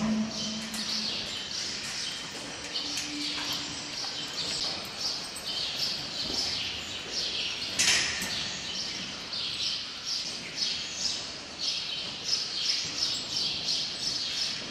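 Small birds chirping constantly, many short high chirps in quick succession, with a single sharp knock about eight seconds in.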